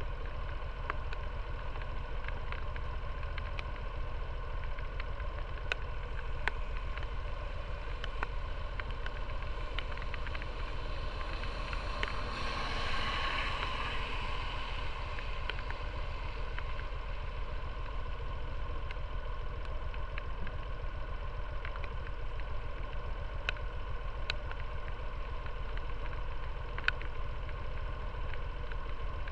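Motor scooter engine idling steadily while the bike stands still, with scattered light ticks. About twelve seconds in, a hiss swells and fades over a few seconds.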